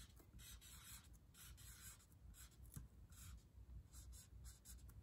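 Marker writing a word on paper: a run of short, faint strokes, irregularly spaced.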